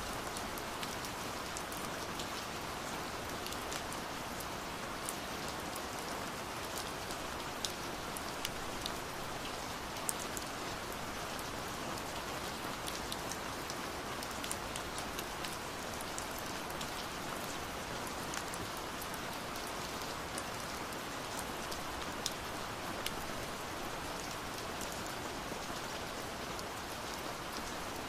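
Steady rain falling, an even hiss with scattered small drop ticks.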